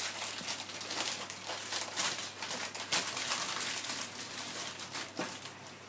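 Plastic packaging of a shop-bought sponge cake crinkling as it is handled and unwrapped, in irregular crackles.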